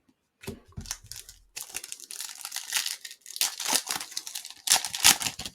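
A trading-card pack wrapper crinkling and tearing as it is opened, in a run of irregular, crackly rustles.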